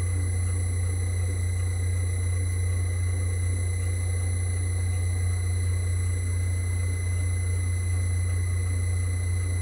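Myford Super 7 lathe running steadily with a deep, constant hum and a faint high whine, while a slot drill held in an ER32 collet chuck on the tool post bores out aluminium. The cut runs smoothly with no chatter.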